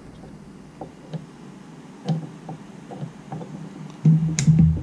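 Light clicks and taps of multimeter probe leads being handled and touched to an ignition coil's plastic terminals. A louder handling knock with one sharp click comes near the end.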